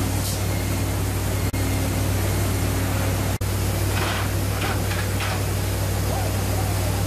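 Steady industrial machinery noise with a constant low hum and a wash of hiss from the pipe-welding station aboard a pipelay vessel. A few short hisses come around four to five seconds in, and the sound drops out for an instant twice.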